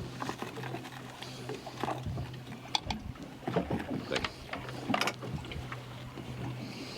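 Scattered light knocks and clicks of gear being handled on a fishing boat, over a steady low hum, with faint voices in the background.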